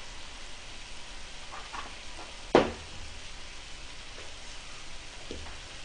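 Pork sizzling on a griddle, a steady hiss. A single sharp thump comes about two and a half seconds in, with a few faint knocks around it.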